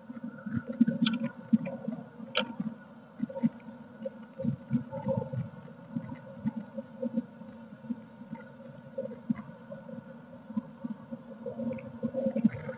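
Blue tit moving about on the floor of a wooden nest box: irregular small scratches, scrapes and knocks as its feet shuffle over the wood and nest material.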